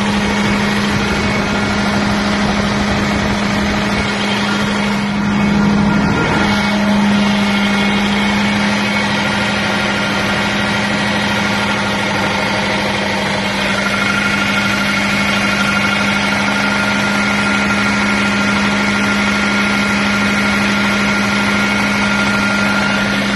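Mitsubishi Heavy Industries 1009 kVA diesel generator set running steadily: a strong even hum with high whining tones above it, one of which grows stronger about halfway through. The sound is reported as abnormal for this generator.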